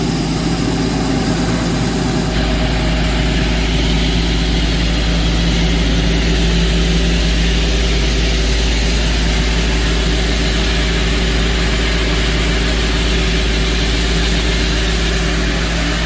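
Excavator diesel engine running steadily, with a deep rumble; it gets somewhat louder about two seconds in.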